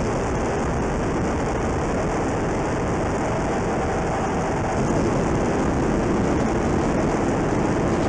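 Steady cockpit noise of an F/A-18 Super Hornet in flight: a constant rush of engine and airflow noise with no breaks. About five seconds in, a faint high whine fades out and the noise grows a little louder.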